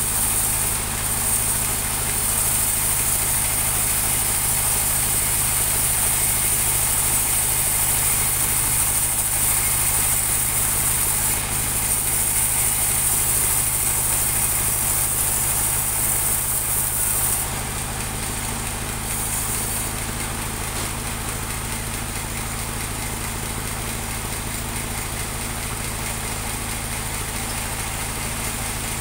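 Engine-driven portable bandsaw mill running steadily while its blade rips a teak log lengthwise, a high hiss over the engine's low hum. A little past halfway the hiss stops and the level drops slightly as the cut ends, leaving the engine and blade running on unloaded.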